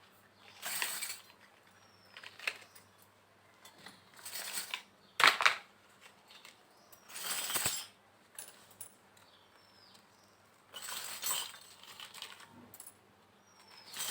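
Small pieces of a miniature toy kitchen set being handled: a series of short clinks and rustles every second or two, the sharpest a click about five seconds in.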